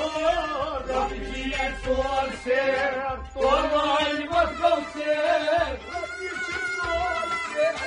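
A man singing a Kashmiri Sufi kalam over instrumental accompaniment, his melody gliding and wavering.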